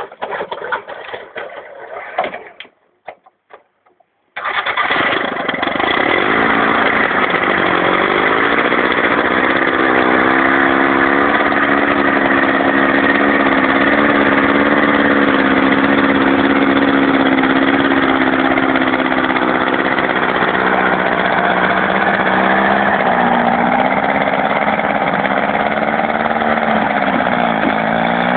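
Small homemade tractor's engine running under load while towing logs. The sound breaks off about two and a half seconds in, leaving near silence with a few clicks, then the engine comes in again loud and steady at about four seconds, its revs rising and dipping a few times.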